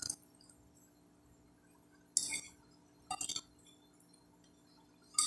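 Metal fork clinking against a plate while food is scooped up: a few short sharp clinks, the clearest about two seconds in, a quick run of them around three seconds, and another near the end.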